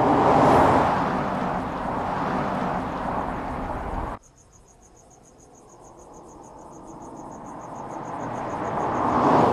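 Audi RS7's twin-turbo V8 driving past at speed, loudest about half a second in and then fading. After a sudden cut about four seconds in, an insect chirps in a rapid, steady pulse while the car's engine grows louder as it approaches, becoming loud near the end.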